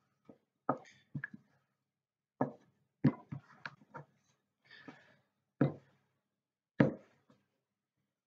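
Rolling pin knocking and bumping on a floured worktop as pastry is rolled out: a string of sharp knocks at irregular intervals, some in quick succession.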